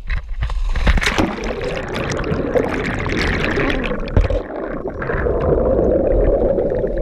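Rushing, bubbling water heard underwater through the camera housing, as a scuba diver plunges in from a dive boat and is wrapped in a cloud of air bubbles.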